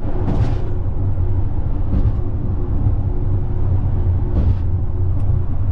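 Steady low rumble of a vehicle driving, with a few brief hissing swells.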